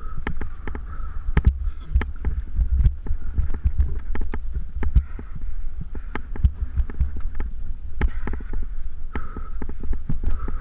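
Mountain bike ridden fast over a dry dirt trail: steady wind rumble on the bike-mounted camera's microphone with frequent irregular knocks and rattles as the bike bounces over bumps.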